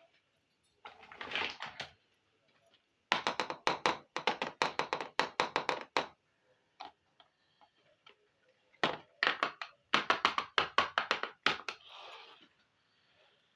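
Small plastic toy-kitchen pieces being handled, with two runs of quick, sharp clicks and taps at about four or five a second, and a soft rustle before the first run and after the second.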